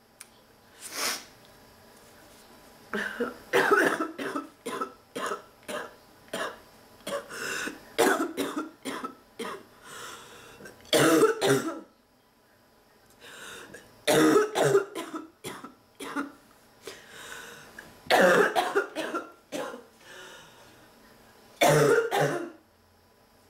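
A person's harsh barking cough from a respiratory illness, coming in repeated fits of several rapid coughs each with short pauses between.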